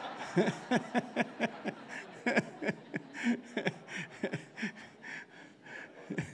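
Congregation laughing at a joke, with one man's laughter close to the microphone in short rhythmic bursts, about three a second, that fade away toward the end.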